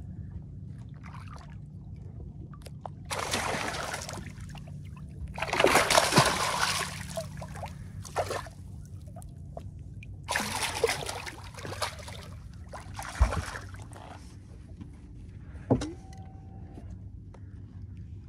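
Several short bursts of water splashing as a hooked smallmouth bass thrashes at the surface beside the boat, the loudest about six seconds in, over a steady low hum.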